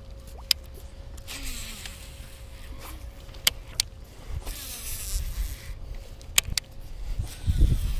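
Wind rumbling on the microphone, heavier near the end, with a faint steady hum underneath. A baitcasting reel is cranked and the rod handled as a swimbait is retrieved and a fish hooked, giving several sharp clicks and short rustles.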